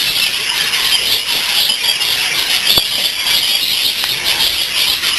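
A flock of budgerigars chattering and chirping all together in a continuous, dense, high-pitched mass of calls.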